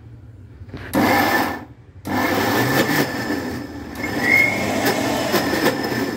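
Electric mixer grinder with a steel jar running briefly, first a burst of about half a second, then after a short pause a run of about four seconds. It is pulsing chopped banana flower into a coarse ground-dal batter, only mixing it and not grinding it smooth.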